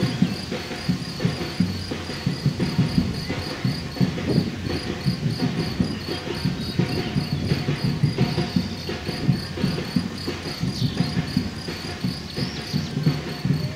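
Footsteps of many runners on a paved road, a dense, irregular patter of footfalls. A faint, regular high-pitched chirping, about three or four chirps a second, runs above it.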